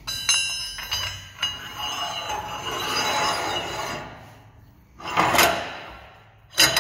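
Steel downhole tool parts handled on a steel workbench. A sharp metal clank rings on for about a second, then metal scrapes and rubs as the pieces are slid and fitted together, with another scrape and a short clink near the end.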